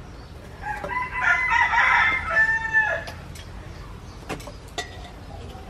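A rooster crowing once, one pitched call of about two seconds starting just under a second in. A couple of sharp clicks follow.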